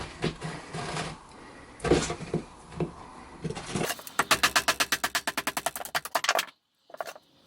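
Batoning a small folding knife through wood: a few scattered knocks, then a rapid, even run of sharp wooden knocks, about nine a second, which cuts off suddenly.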